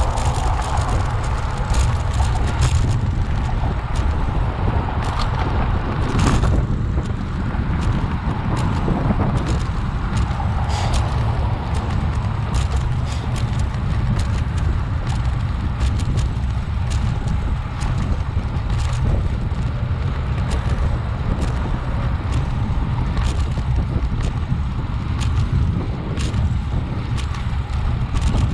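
Wind buffeting the microphone of a camera on a moving bicycle: a steady low rumble with road noise and scattered clicks and rattles.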